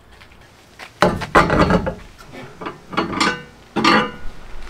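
Metal clanking and clinking as the spare wheel is handled and hung on the rear door's metal tire carrier, in three loud spells about a second, three seconds and four seconds in.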